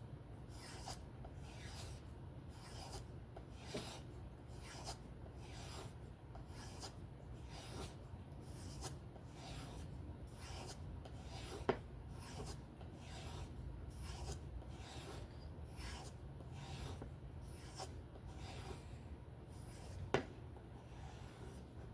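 Folding knife blade being drawn in repeated strokes across a sharpening surface, a quiet rasping scrape about twice a second, as in freehand sharpening or stropping of the edge. Two sharper clicks, about twelve and twenty seconds in, stand out.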